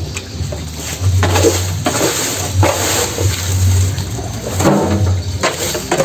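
Rustling and splashing as dry cut fodder stalks are handled and dropped into a wet concrete feed trough, in several short bursts over a steady low rumble.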